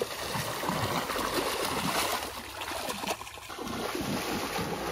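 Shallow muddy water splashing and churning without a break as a person thrashes both hands through it, groping for fish by hand. It eases briefly a little past halfway.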